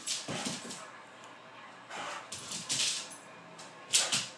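A dog's paws scrabbling on a hardwood floor as it spins and lunges, in a few short bursts, the loudest near the end.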